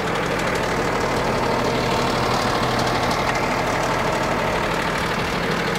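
Cummins ISB straight-six turbodiesel in a 2012 Freightliner M2 idling steadily, parked with the parking brake set, just after starting.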